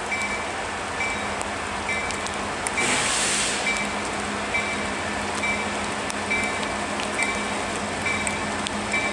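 EMD diesel freight locomotive approaching with a steady low engine drone under the hiss of falling rain, a bell ringing about once a second. A brief louder burst of hiss comes about three seconds in.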